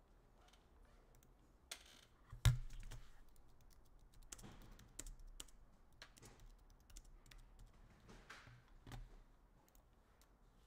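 Scattered light clicks, taps and brief swishes of handling on a table, with one sharp knock about two and a half seconds in.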